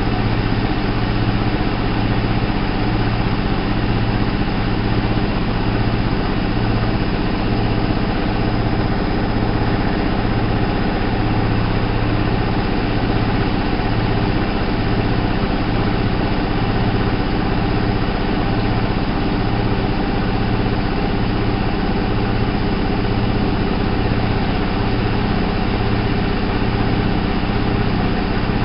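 ALASKA WA8200 E front-loading washing machine (a Balay-built Constructa Viva) running steadily: a constant mechanical hum with a regular low throb repeating all the way through.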